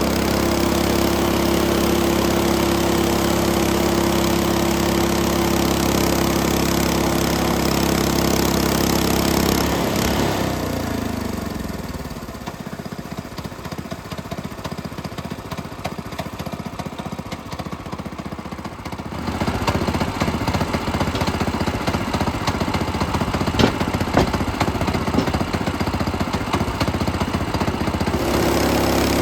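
The sawmill's small engine runs steadily at speed, then winds down in pitch about ten seconds in and runs quieter and lower for several seconds. It then picks up again into a rougher, rattling run with scattered sharp knocks, and settles back to a steady high speed near the end.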